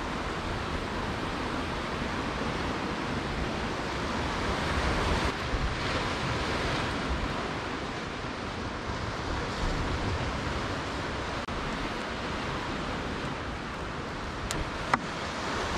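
Steady wash of sea surf with wind, and one sharp click near the end.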